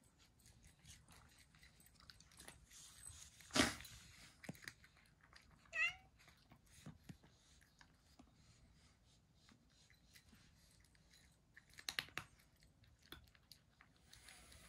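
A cat crunching dry kibble, faint chewing clicks throughout, with a short meow about six seconds in. A brief sharp noise about three and a half seconds in and another cluster of short noises near twelve seconds stand out above the chewing.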